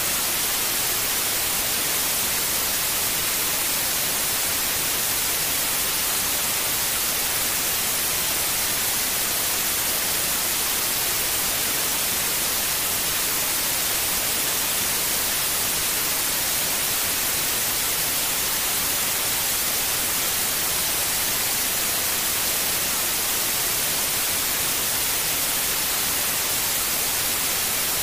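Steady white noise: an even, unchanging hiss, strongest in the high frequencies.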